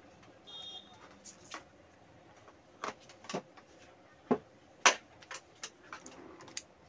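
Scattered clicks and knocks of things being handled on a workbench, the loudest about five seconds in, with a short high beep near the start.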